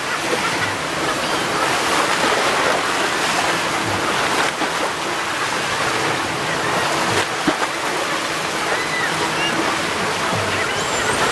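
Steady rushing wash of water and surf, waves breaking against a rock jetty, with no distinct engine sound.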